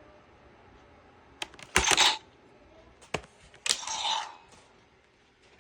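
Hard plastic clicks and clatter from the Gokai Saber and Gokai Gun toys being handled, with two short, loud, hissing bursts, one about two seconds in and another about four seconds in.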